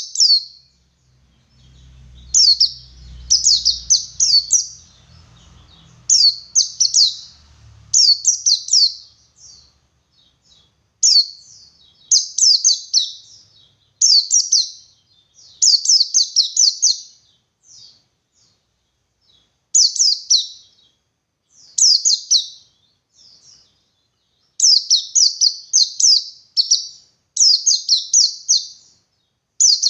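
A white-eye (pleci) singing its 'ngalas' song: high, rapid runs of downward-sweeping chirps, each a second or two long, repeated with short pauses.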